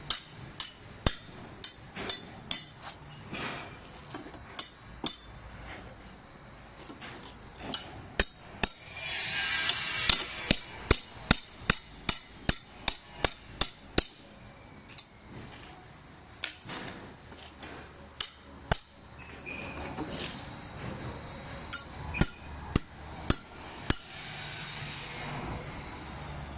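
Hammer blows on a wooden shipping crate frame as it is knocked apart: a run of sharp strikes, coming fastest around the middle at about three a second, with short stretches of rasping noise between bouts.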